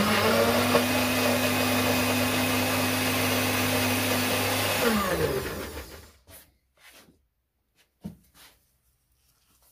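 NutriBullet personal blender running at full speed, pureeing a raw onion, with a steady motor whine for about five seconds before it winds down with falling pitch. A few light knocks follow.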